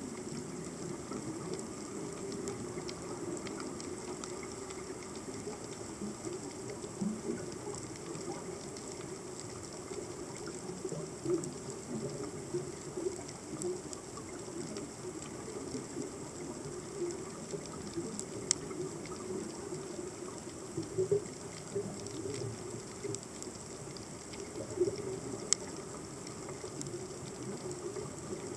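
Underwater ambience picked up by a submerged camera: a steady, churning low water noise with scattered sharp clicks, a few of them louder, near the middle and the end.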